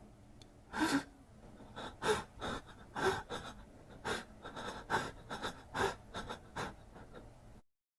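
A man crying: a string of short, gasping sobs and whimpers, about a dozen, coming at uneven intervals.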